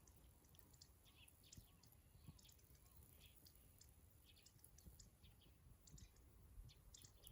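Faint crackling of a small wood fire: scattered, irregular pops and ticks.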